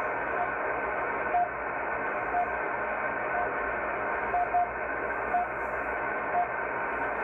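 RWM Moscow time signal station on 9996 kHz, heard through a shortwave receiver in CW mode on an MLA-30 magnetic loop antenna: short beeps once a second, one of them doubled, over steady shortwave hiss.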